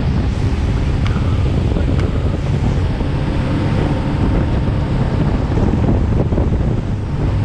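Wind rushing over the microphone of a fast-moving inflatable speedboat: a steady low rumble, with the boat's engine and water noise beneath it.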